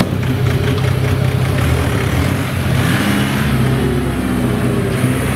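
Custom-built off-road buggy's engine running and revving as the buggy pulls away, its pitch rising about halfway through.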